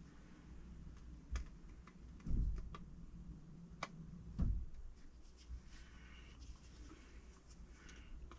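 Light clicks and handling noises of small tools and a 3D-printed plastic part on a workbench, with two duller knocks about two and four and a half seconds in.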